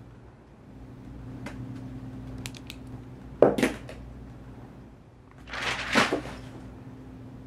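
A sharp knock about three and a half seconds in, then a paper notebook thrown onto the floor: a rustling flutter of pages that ends in a slap as it lands, about six seconds in. A low steady hum runs underneath.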